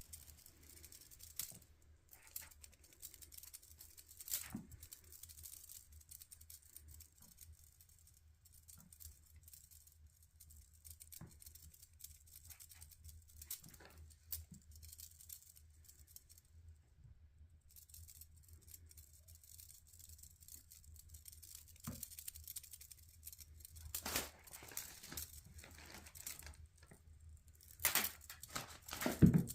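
Kittens moving about: scattered scratching, rustling and light taps, growing busier and louder near the end, with a couple of sharp knocks.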